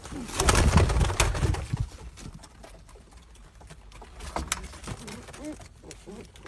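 Domestic pigeons cooing in a loft, with a loud burst of clattering and rustling about half a second in that lasts just over a second.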